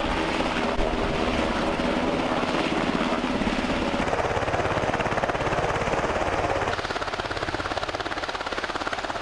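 Helicopter hovering close by: a rapid, steady chop of its rotor blades over continuous engine noise.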